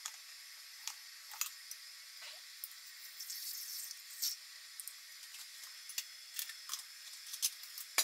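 Scattered light clicks of a plastic syringe being handled over a homemade aluminium-can alcohol stove, with a brief faint hiss about three seconds in as alcohol fuel is squirted into the stove.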